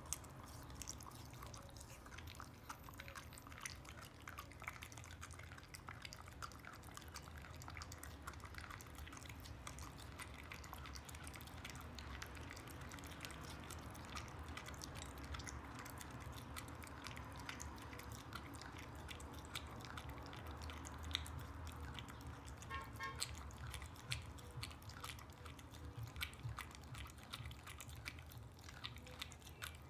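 Border collie gnawing and chewing on a raw meaty bone: a faint, irregular run of small clicks from teeth working on bone and meat.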